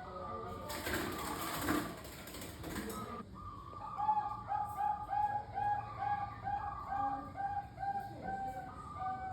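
Bangkok-type zebra doves (perkutut) cooing, with more than one bird overlapping in repeated short notes. About four seconds in, one bird starts a long run of evenly spaced notes, about three a second. A loud rushing noise covers the cooing for about two and a half seconds near the start.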